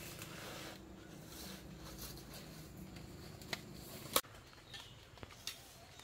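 Footsteps rustling through forest undergrowth and leaf litter, with a couple of sharp snaps about three and a half and four seconds in. A steady low hum underneath cuts off abruptly at the second snap.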